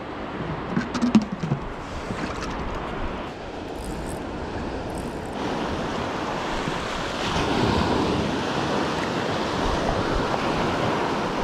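Surf washing onto a beach, a steady rush of breaking waves that swells a little louder past the middle, with some wind on the microphone. A few sharp clicks about a second in.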